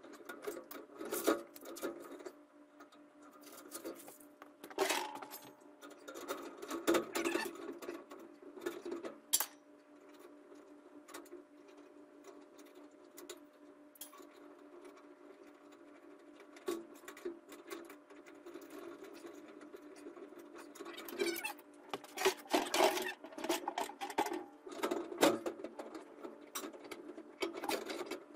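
Irregular clicks, scrapes and light metallic rattles of a sheet-metal stove pipe connector being handled and fitted onto a steel wood stove insert, pausing for several seconds midway, over a faint steady hum.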